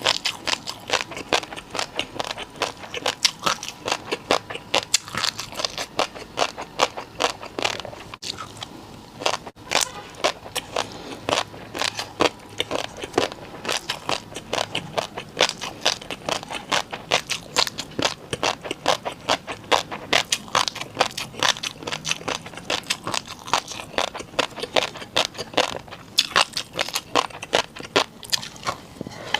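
Someone chewing crunchy food close to the microphone: rapid crunches and crackles, several a second.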